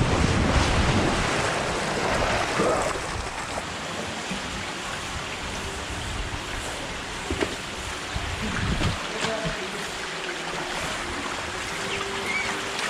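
Wind buffeting the microphone as a rider slides down a water slide, fading after about two seconds. Then a steady rush of water flowing down a steep water slide, heard from its top.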